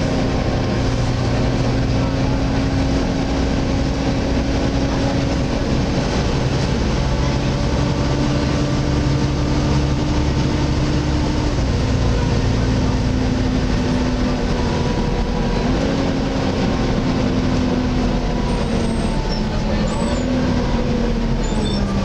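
Volvo B7TL double-decker bus on the move, heard from inside on the upper deck: a loud, steady whine from its engine cooling fan (the "hoover") over engine and road noise. The whine shifts in pitch a few times and falls away near the end.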